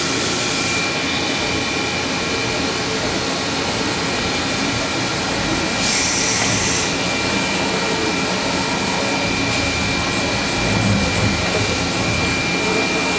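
1995 Fadal 4020HT vertical machining center's axes traversing under servo drive: a steady mechanical whir with a constant high-pitched whine, and a short hiss lasting about a second some six seconds in.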